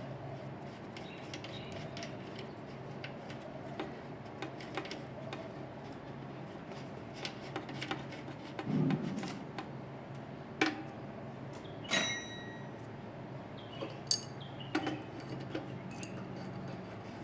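Metal tools and small parts clicking and clinking as they are handled, with one sharp clink about twelve seconds in that rings briefly and a dull knock a little before it, over a steady low hum.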